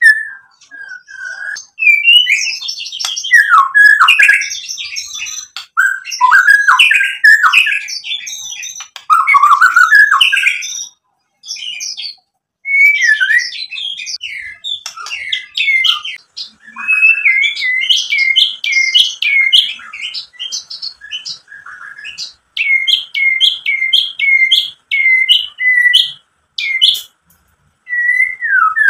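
White-rumped shama singing loudly: rapid, varied phrases of rich whistles and chatter, broken by short pauses. In the second half the bird runs into repeated whistled notes, about two a second, each sliding down in pitch.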